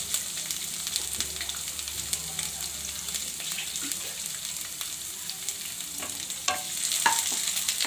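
Sliced onions, garlic and ginger sizzling in hot oil in a kadai, a steady hiss with scattered small clicks. A wooden spatula knocks against the pan a few times near the end.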